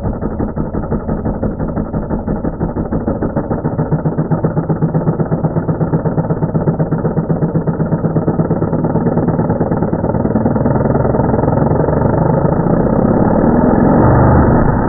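LEGO flat-four (boxer) engine model driven by a brushless electric motor, its plastic pistons and crank rattling at rising speed. At first it throbs a few times a second. The beat quickens until it merges into one steady racket that gets louder toward the end, as the overspeeded engine starts breaking apart and throwing pieces.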